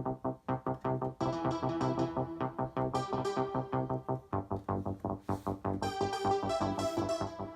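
Alesis Micron synthesizer playing a fast repeating pattern of pitched notes, about five a second, with longer held higher notes laid over it.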